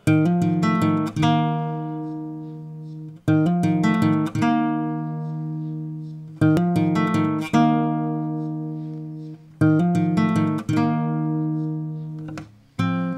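Background music: an acoustic guitar strumming chords. Each chord is struck with a few quick strokes and left to ring and fade, with a new chord about every three seconds.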